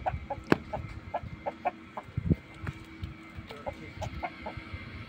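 Chicken clucking, a run of short, quick clucks, with a few loud thumps close by, the sharpest about half a second in and another just past two seconds.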